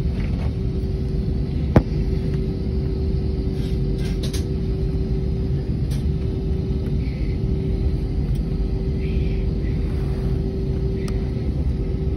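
Steady low rumble of an airliner heard from inside the passenger cabin, with a constant hum running under it, the sound of the aircraft's engines and air systems running while it waits for takeoff. A single sharp click about two seconds in.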